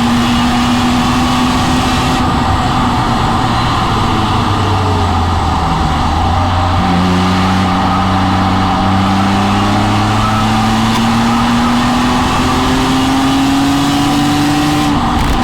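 BMW M3 E46's 3.2-litre straight-six heard from inside the car under steady driving, with road and wind noise. The engine note drops early on, then climbs slowly and evenly for about eight seconds before falling away near the end, as at a gear change.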